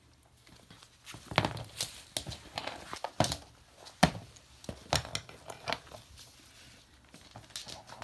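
Hyacinth macaw attacking a fabric slipper on a wooden floor: irregular knocks and thuds with fabric rustling as it bites and tosses it, the sharpest knock about four seconds in.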